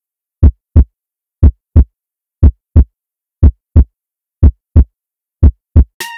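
Heartbeat sound effect: a double thump, lub-dub, six times at about one beat a second, with dead silence between. Electronic music starts near the end.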